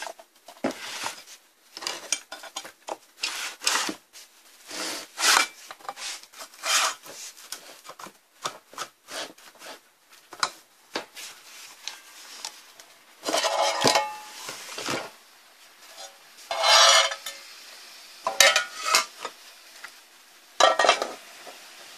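Power inverter being taken apart by hand: its aluminium case and circuit board scraping and knocking against a wooden workbench in irregular bursts, with a few longer scrapes past the middle.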